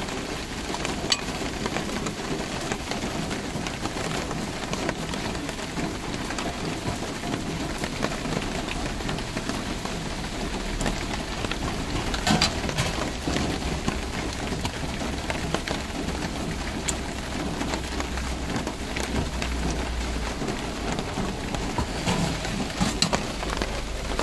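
Steady hiss of street-stall background noise with a few sharp clinks of steel utensils, the loudest about twelve seconds in, and a low rumble that builds from about eight seconds in.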